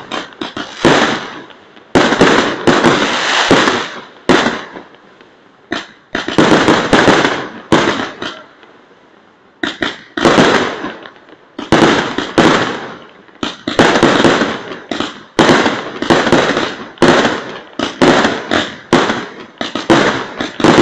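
Fireworks display: shells launched from the ground in quick succession, going off as a string of loud bangs about one or two a second. There is a short lull about halfway through.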